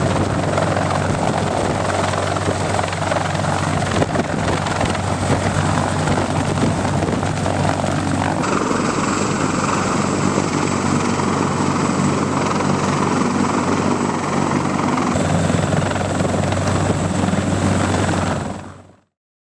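CH-53E Super Stallion heavy-lift helicopter hovering close by, its rotor and three turbine engines running loud and steady, with a low hum under a thin high whine. The sound fades out quickly near the end.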